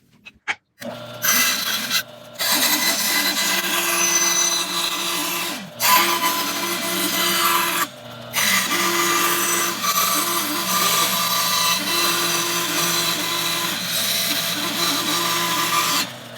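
Power tool running on wood, a steady motor hum under a loud, rough working noise that stops briefly three times, about two, six and eight seconds in.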